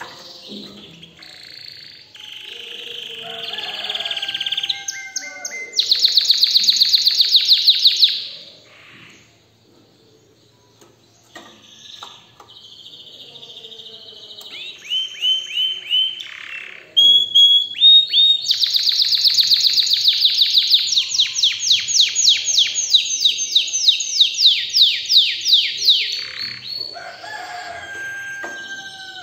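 Domestic canary singing: long phrases of rapid repeated-note trills, a loud trill about six seconds in, then after a short pause a longer run of trills lasting some eight seconds.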